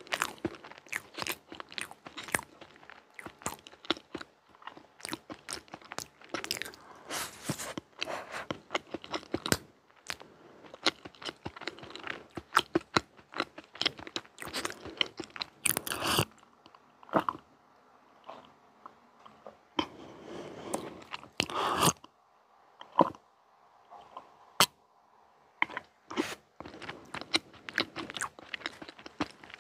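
Close-miked chewing of a mouthful of chocolate sponge cake with cream, full of small mouth clicks. The chewing is dense for the first half, then thins out to scattered clicks with quiet gaps.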